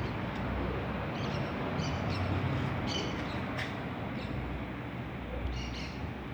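Electric fan running with a steady whoosh of moving air and a low hum, with a few short, faint high chirps over it.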